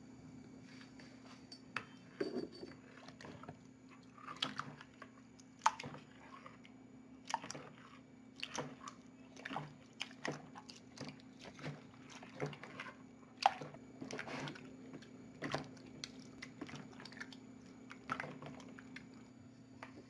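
Wet slime being stirred with a spatula and squeezed and kneaded by hand in a bowl, giving irregular sticky clicks and squishes, one or two a second.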